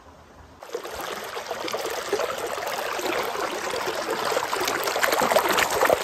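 Shallow stream water rushing and trickling over rounded rocks close by. It starts suddenly about half a second in and grows a little louder.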